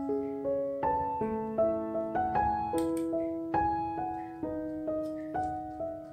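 Background piano music: a gentle melody of single notes, about two to three a second.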